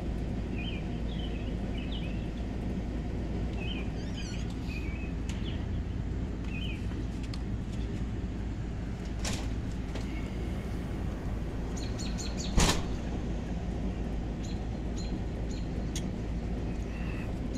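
Birds chirping in short calls over a steady low background noise. The calls thin out after the first few seconds. A sharp click about twelve and a half seconds in is the loudest sound, with a few fainter ticks around it.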